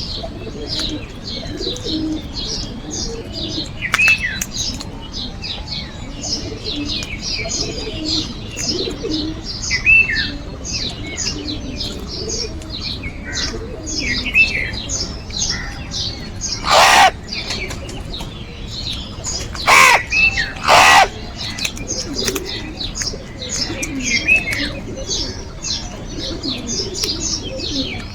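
Busy bird chorus: many small birds chirping rapidly, with scattered downward-gliding calls and lower calls underneath. About two-thirds of the way in come three loud harsh crow caws, one and then two close together about three seconds later.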